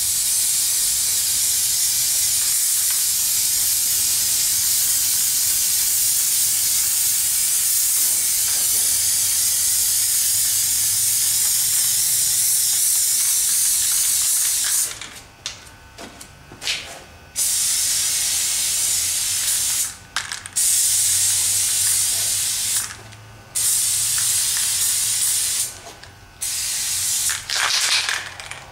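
Aerosol spray paint can hissing in one long, steady burst of about fifteen seconds, then in a run of shorter bursts of one to three seconds with brief gaps between them.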